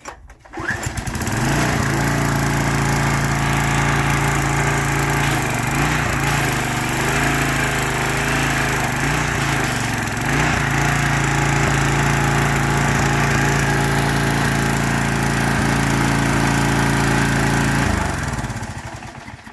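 Troy-Bilt 6.75 hp pressure washer's small gas engine catching about a second in, then running at a steady speed; near the end it is shut off and winds down.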